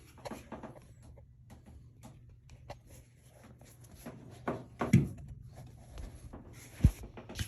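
A toilet being turned over and handled: scattered knocks and clunks, with two loud thumps, one about five seconds in and one about seven seconds in.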